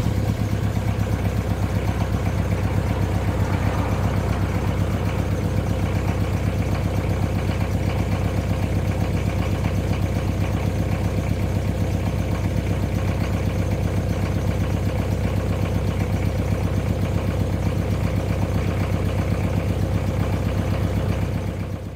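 A 1997 Jeep Cherokee XJ's 2.5 turbo diesel engine running steadily on a cold start, with one glow plug dead and waste motor oil in the fuel tank. The sound fades out at the very end.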